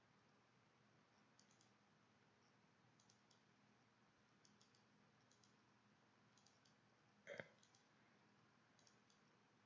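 Near silence with faint computer mouse clicks, several in quick pairs, as menus are worked. One short, louder sound comes about seven seconds in.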